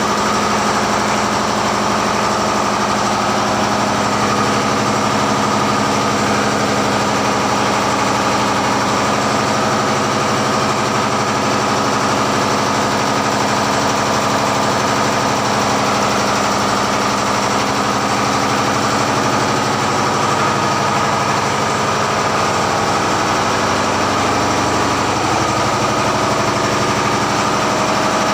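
Tugboat engine-room machinery, the marine diesel engines running at a steady speed, heard up close in the enclosed room as a loud, unchanging drone with a mix of low and high steady tones.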